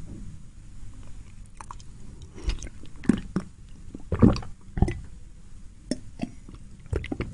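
A person chewing food close to the microphone: scattered wet mouth smacks and squishes, the loudest a little past halfway through.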